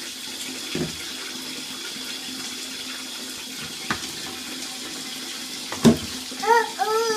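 Bath tap running steadily into a tub, with three sharp knocks spaced a couple of seconds apart. Near the end a toddler's short high calls rise and fall.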